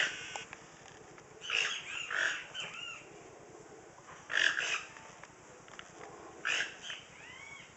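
Toucans giving their grunting, croaking calls: three bouts of short rough notes about two seconds apart.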